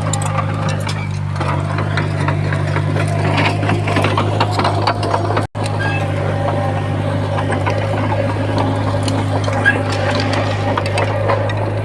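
Bulldozer diesel engine running at a steady drone, with frequent clanks and rattles of the machine and rock over it. The sound cuts out for an instant about halfway through.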